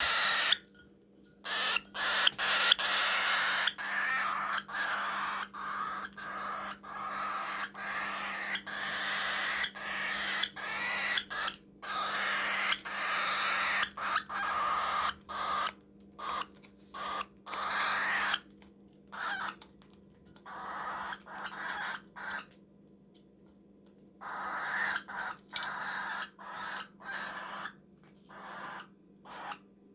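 Baby cockatiel giving harsh, raspy food-begging calls while eating, repeated in quick succession with a few short pauses, the longest about two thirds of the way through. A faint steady low hum lies underneath.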